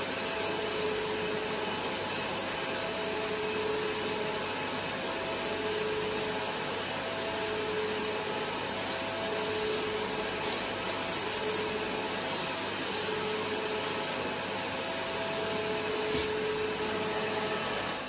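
Vaniman Pro Blast air abrasive unit blasting fine powder through a pen-style nozzle onto a shale ammonite: a steady hiss, with a faint hum that comes and goes about every two seconds.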